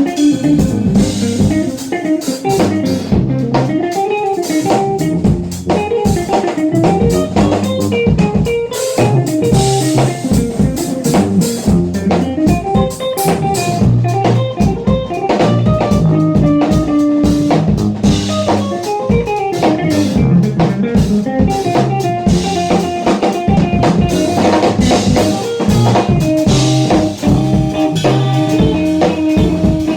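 Funk-jazz instrumental played by a trio: a guitar carrying the melody over a tuba bass line and a drum kit keeping a busy groove.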